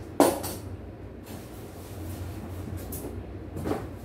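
Unpacking a cardboard shipping box: a sharp knock just after the start, then faint handling and rustling of the packing, and a second, softer knock near the end, over a steady low hum.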